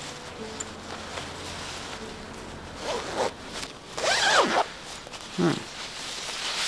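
Zipper of a padded electric heated vest being engaged and zipped up: a short zip about three seconds in, a longer, louder zip a second later, and a brief one near the end.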